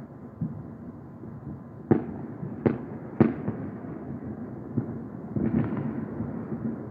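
Fireworks going off: three sharp bangs about two seconds in, each trailing off, then a quick cluster of pops a little past halfway, over a steady low rumble.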